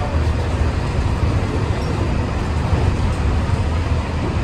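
Steady low rumble and running noise inside the cabin of a Bombardier Mark VI monorail travelling along its beam.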